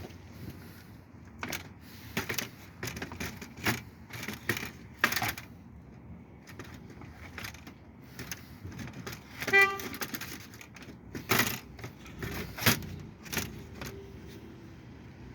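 Scattered metallic clinks and knocks, like tools and parts being handled during work on a car, with one short pitched beep like a brief horn toot about ten seconds in.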